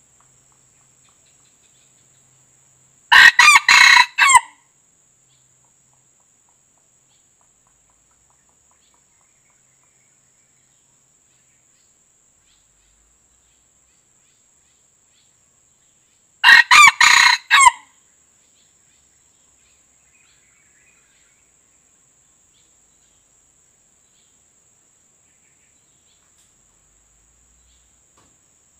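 Red junglefowl rooster (white-eared form) crowing twice, about thirteen seconds apart; each crow is short and broken into a few clipped syllables, lasting about a second and a half, with near silence between.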